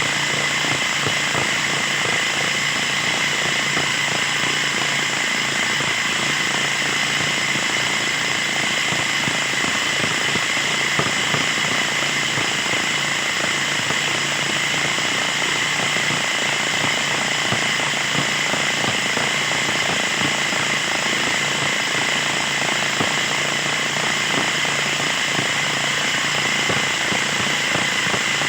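Small petrol engine of a freshly overhauled mower running steadily at constant speed.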